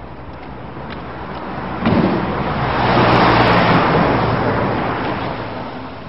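A vehicle passing close by: a rush of noise over a low steady hum that jumps louder about two seconds in, is loudest around three to four seconds, then fades away.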